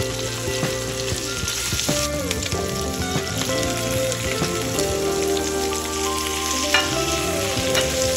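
Beef strips sizzling as they fry in oil in a nonstick frying pan, stirred and turned over. Partway through, sliced red onion and green bell pepper go in and fry with the beef.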